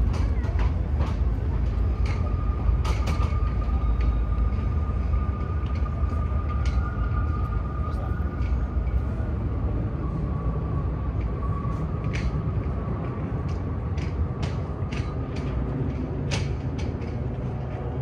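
Train running: a heavy low rumble with scattered sharp clicks, and a faint steady whine through the first half. The rumble eases slightly toward the end.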